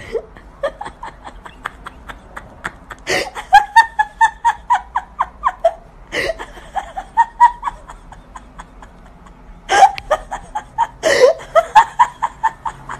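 A person laughing hard in high-pitched fits of rapid 'ha-ha' bursts, about four or five a second. There are three fits, each starting with a sharp, loud burst.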